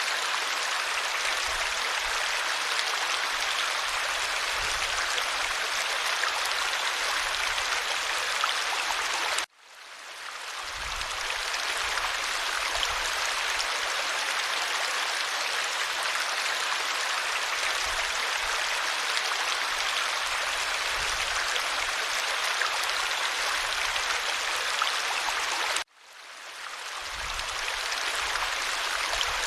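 Clear stream water rushing and splashing steadily over its bed. The sound cuts out abruptly twice, about a third of the way in and near the end, each time fading back in over a second or two.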